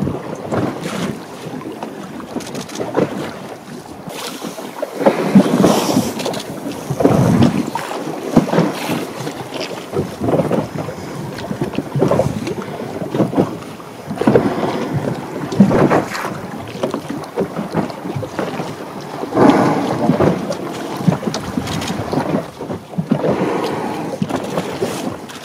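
Wind buffeting the microphone over choppy water splashing against a small boat's hull, swelling in irregular surges every second or two.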